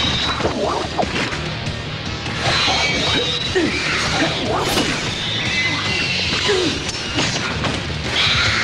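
Fight-scene sound effects: repeated punch and kick impacts and whooshes of swinging limbs, over a background music score.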